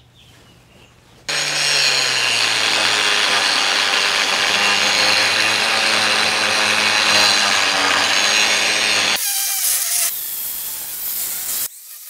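Angle grinder cutting into the steel shell of a hermetic rotary air-conditioner compressor: a steady grinding that starts about a second in, the motor's hum dipping slightly as the disc bites. It is quieter for the last few seconds.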